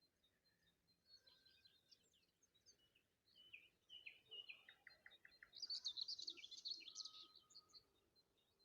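Faint dawn chorus of several songbirds chirping and whistling, loudest about six seconds in with a quick run of high notes.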